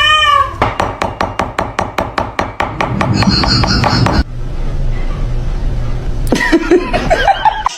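Rapid, even tapping, about four sharp knocks a second, for a few seconds. After an abrupt cut comes a steady hiss and, near the end, a short voice-like sound.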